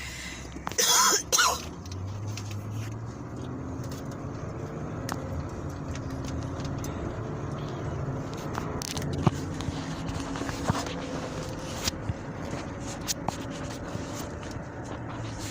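Steady low hum of a running vehicle heard from inside, with scattered sharp clicks throughout. Two brief loud noisy bursts come about a second in.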